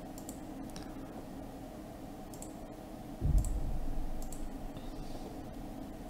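Computer mouse clicking a few times, faint and spaced out, over a steady low hum. A dull low thump a little past halfway is the loudest sound.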